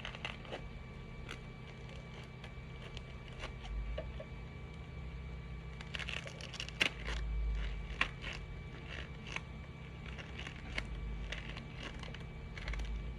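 A soft 3D-printed shoe being pried and peeled off a 3D printer's build plate: scattered scraping, creaking and clicking, busiest about six to eight seconds in with two sharp clicks, over a steady low hum.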